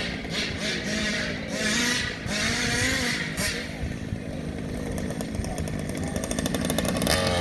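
Two-stroke RC car engine revving up and down as the car is driven, getting louder near the end.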